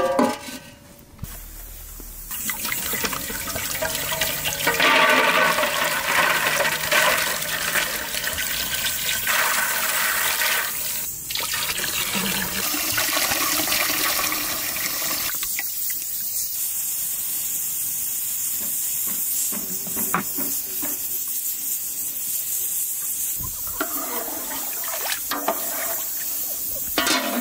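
Water pouring into a large metal cooking pot of beans and grains, a steady splashing rush that turns to a thinner, higher hiss about halfway through.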